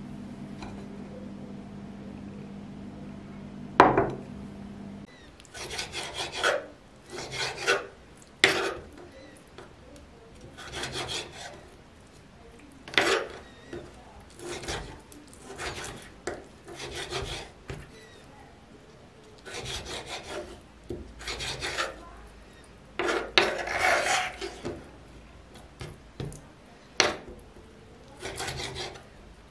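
Kitchen knife cutting raw chicken gizzards on a wooden cutting board: irregular bouts of the blade slicing through and scraping across the wood. Before the cutting starts there is a low steady hum and one sharp knock about four seconds in.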